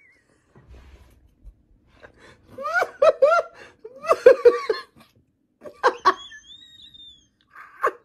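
A person laughing in short rising bursts, a run of them from a little after two seconds in to about five seconds in, with more briefly near the end. A thin high gliding tone sounds about six seconds in.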